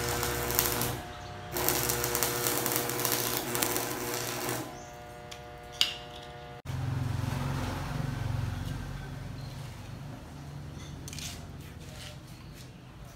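Stick (arc) welding on a steel-bar frame: the arc crackles and sizzles in two runs over the first four and a half seconds, with a steady electrical hum beneath. About halfway through the sound cuts off abruptly to a much quieter background.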